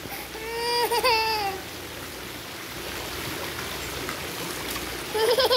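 A toddler's short whining cry, then the steady rush of running water in a swimming pool. A brief voice returns near the end.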